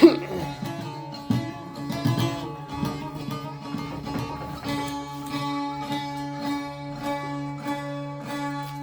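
Instrumental interlude between sung verses: a plucked string instrument playing a quick run of notes over a steady held drone.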